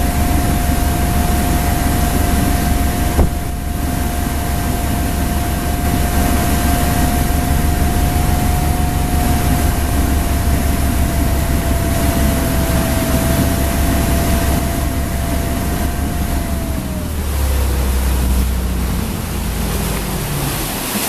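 Motorboat engine running steadily at towing speed, with a whine in its note over a steady rush of wind and water. The engine's pitch drops about three-quarters of the way through. A single knock comes about three seconds in.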